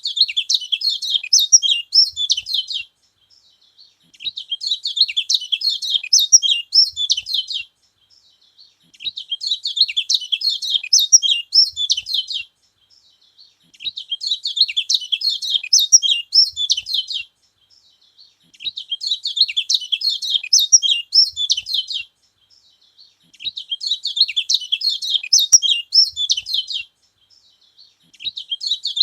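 Kecial kuning, a small yellow white-eye, singing in repeated bouts of fast, high twittering. Each bout lasts about three seconds and is followed by a pause of about a second and a half.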